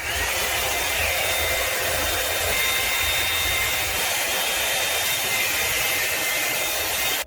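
Electric hot-air hair brush blowing steadily: an even rush of air with a faint high whine. It cuts in and cuts off abruptly.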